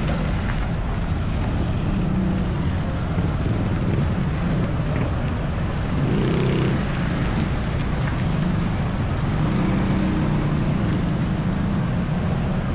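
Heavy road traffic passing close by: cars, pickup trucks, a van and motorcycles, engines running steadily, with one passing vehicle louder about six seconds in.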